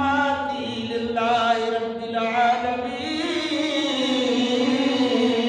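A man chanting in long, drawn-out notes that bend up and down, with a long held note in the second half.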